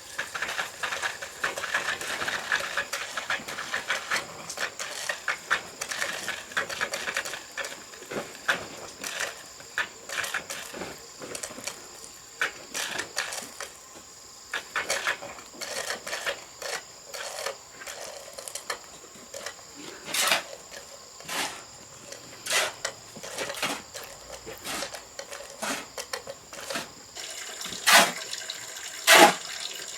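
Irregular clinks, scrapes and knocks of hand work with hard objects, busiest in the first half, with a few louder sharp knocks near the end.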